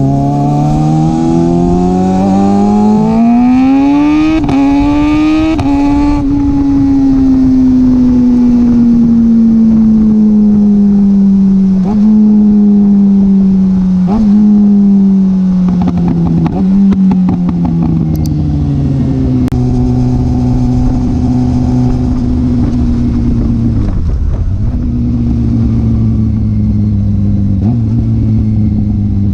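Kawasaki ZX-6R's inline-four through an M4 exhaust with a decatted baffle, heard close to the exhaust outlet. The revs climb over the first few seconds, then fall away slowly in small steps, with a few sharp pops about halfway through. After that the engine runs at a steady lower speed.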